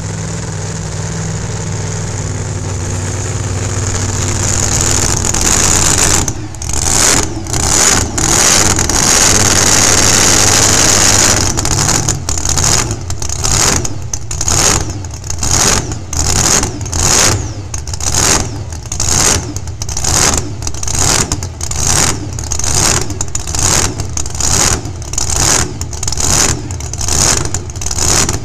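Modified pickup pulling truck's engine running and building for several seconds, then held at high revs. From about twelve seconds in it is blipped over and over, about one and a half revs a second.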